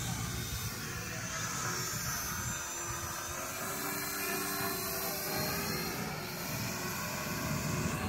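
Electric motor and propeller of a small RC foam plane (2208 1000kv motor) buzzing in flight, its pitch drifting slowly up and down as the plane moves and the throttle changes.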